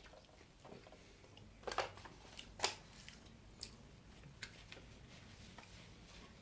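Quiet eating and handling noises from a large burrito: a string of soft clicks and crinkles, with two louder ones about two and three seconds in.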